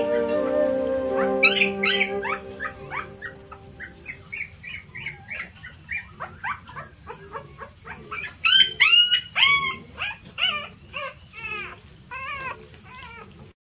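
Newborn puppy squealing and whimpering in a long series of short, high-pitched cries, loudest in a cluster about eight to ten seconds in. A few held music notes sound under the first couple of seconds.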